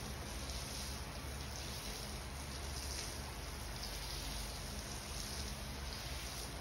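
Water from a plastic bucket splashing and pouring onto a flooded, soaked area rug, over a steady low hum.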